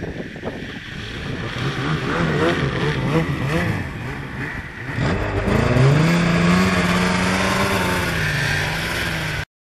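Arctic Cat Sidewinder B-TX snowmobile's turbocharged three-cylinder engine under hard throttle on a hill climb, its note wavering as the revs rise and fall. About halfway through the sound changes abruptly to a steadier, higher note held on the throttle, which cuts off suddenly near the end.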